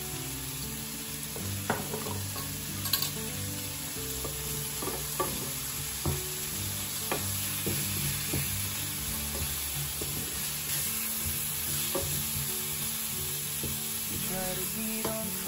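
Shrimp and zucchini sizzling in a frying pan while a wooden spatula stirs and turns them, with occasional knocks of the spatula against the pan.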